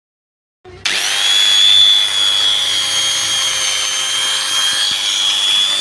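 Hitachi angle grinder switched on under a second in, its motor spinning up quickly and then running steadily at full speed with a high-pitched whine.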